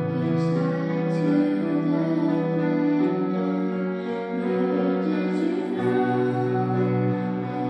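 Casio electric keyboard playing slow sustained chords, with a woman singing softly over it through a microphone.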